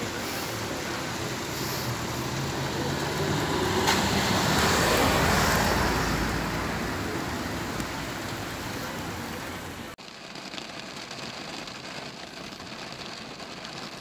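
Road traffic on a rain-wet street: a steady hiss of tyres and engines that swells as a vehicle passes about four to six seconds in. About ten seconds in it cuts abruptly to a quieter, steadier hiss.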